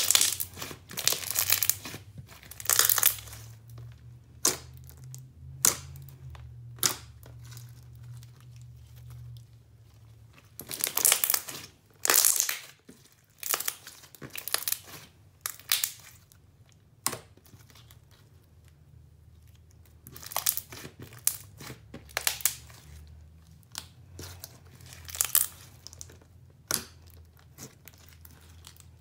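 Hands squeezing, pressing and poking a thick clear slime with fishbowl beads: irregular sticky crackling and small air-bubble pops, some short and sharp, some drawn out over a second or so.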